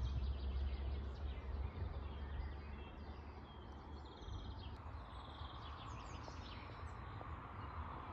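Faint birdsong at dawn: many short chirps and whistles from several birds, over a low steady rumble that eases after about four seconds.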